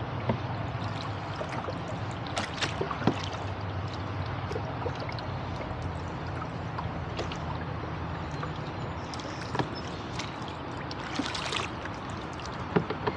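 A small rowboat being rowed: water trickling and gurgling along the hull and oar blades, with scattered sharp knocks and clicks from the oars working in their oarlocks, over a steady low hum.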